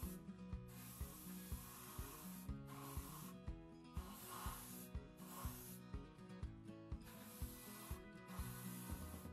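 Airbrush spraying paint in several short bursts of hiss, each lasting about half a second to a second and a half, over background music with a steady beat.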